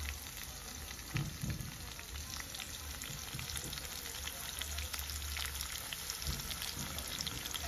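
Sliced onions frying in hot oil in a kadai: a steady sizzle dotted with small crackles.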